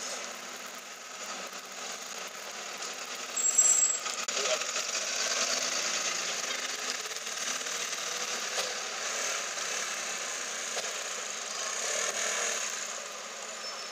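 Lamborghini Aventador's 6.5-litre V12 running at idle, with a sudden loud burst about three and a half seconds in and a swell in level near the end.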